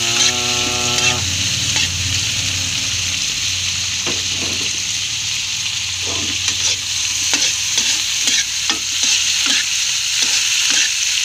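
Field crickets (kuliglig) frying in hot oil in a pan, sizzling steadily, while a slotted metal spatula stirs and scrapes through them, with repeated scraping strokes from about four seconds in. The crickets are being fried until toasted and crunchy.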